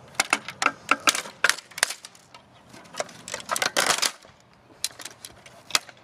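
Plastic clicking and cracking as a broken mini electronic keyboard is pried apart by hand: a quick run of sharp snaps and clicks, another dense cluster about three to four seconds in, and one more click near the end.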